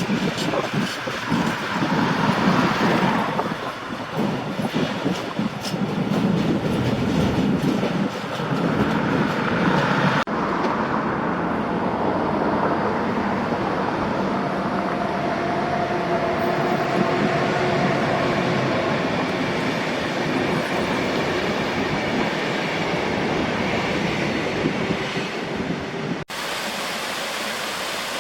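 Diesel-hauled train running through railway points: the wheels clatter rhythmically over the rail joints, then give way to a steadier rumble with faint, drawn-out wheel squeal. About two seconds before the end it cuts suddenly to a steady hiss.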